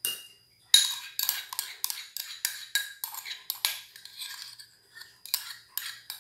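A utensil clinking and scraping against the rim of a plastic blender jar while creme de leite is scraped in from its carton: a fast run of sharp taps, about three or four a second, with a short pause about two-thirds through.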